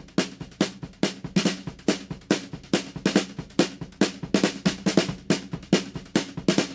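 Background music: a drum kit playing a steady, busy beat over a low sustained bass line.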